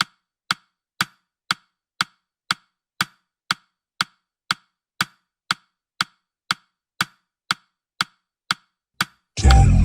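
Countdown-timer tick sound effect: short, sharp woodblock-like clicks, two per second, evenly spaced. Near the end the ticking stops and loud music with a heavy bass starts.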